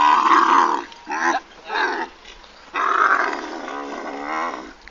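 Camel groaning loudly as it is made to kneel: a long groan, two short ones, then another long, wavering groan.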